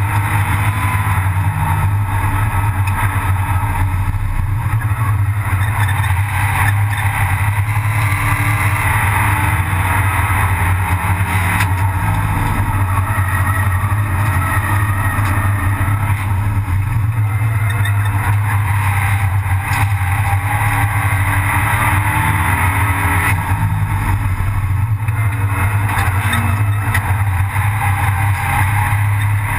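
Abarth 500 Assetto Corse race car's turbocharged 1.4-litre four-cylinder engine running hard at racing speed, heard from inside the stripped, roll-caged cabin. The engine note is loud and fairly steady, with tyre and wind noise underneath.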